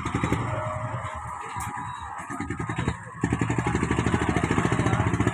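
Small boat engine running with a fast, even putter, getting louder about three seconds in.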